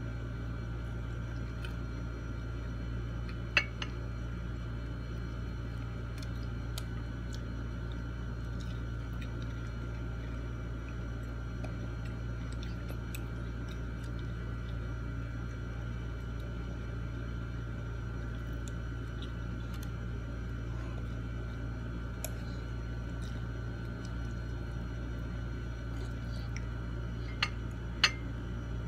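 A person eating with their hands, making scattered faint mouth clicks and chewing sounds over a steady low hum. There are two sharp clicks, one about three and a half seconds in and one near the end.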